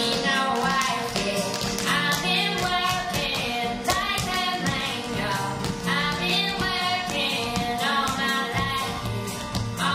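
Music with a singing voice over a steady beat, accompanying a stage dance number.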